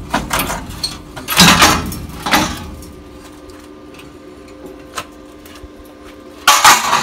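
Metal clattering and scraping in short harsh bursts, loudest around a second and a half in and again near the end, over a faint steady hum: sheet-steel frame pieces of an old VW bus being worked loose.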